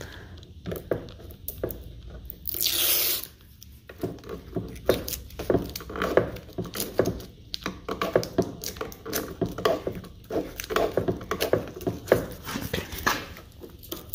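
Cheap adhesive tape being picked at with fingernails and peeled off a painted fiberglass panel. It breaks off in short, crackly tugs, with one longer rip about three seconds in.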